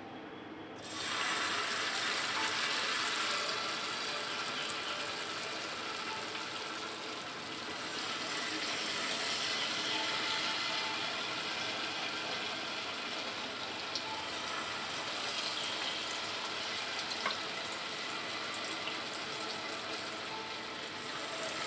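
Vegetable fritter batter frying in hot oil in a saucepan: a sizzle with small crackles that starts suddenly about a second in as the batter goes into the oil, then carries on steadily.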